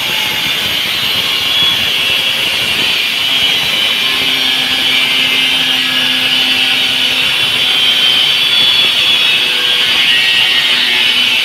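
Handheld electric angle grinder cutting through a ceramic wall tile, a loud steady high-pitched whine as the disc grinds along the cut line.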